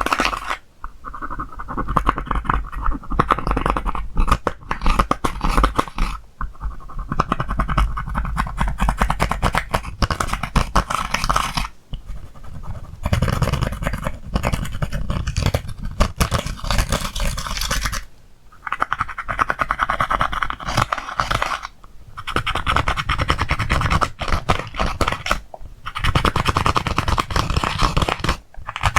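Slime being kneaded and pressed by hand, a dense run of sticky clicks and small crackling pops in stretches of a few seconds with short pauses between them.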